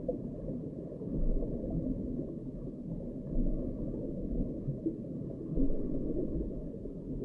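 Underwater sound picked up by an underwater fishing camera lowered through the ice: a muffled, deep rumble and gurgle with nothing high-pitched in it, swelling louder now and then.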